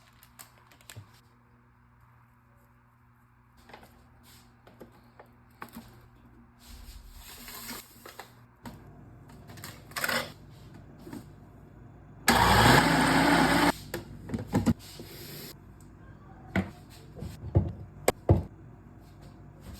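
Kitchen work sounds: scattered clicks and knocks of utensils and dishes, over a low steady hum. A little past the middle a small electric motor runs loudly for about a second and a half, then stops.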